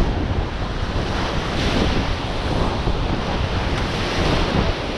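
Steady rush of whitewater as the raft runs a river rapid, with wind buffeting the microphone.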